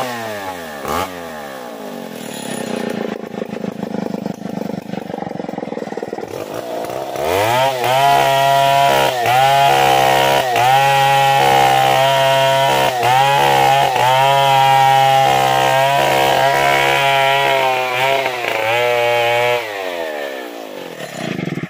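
STIHL two-stroke chainsaw felling a damar tree, its engine falling back in pitch at the start, then running at full revs from about seven seconds in. The pitch dips and recovers again and again as it cuts into the trunk, and the saw winds down near the end.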